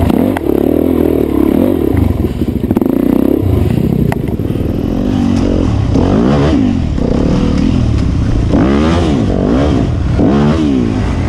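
Off-road dirt bike engine running close to the microphone. From about halfway through, its pitch rises and falls again and again in short bursts of throttle.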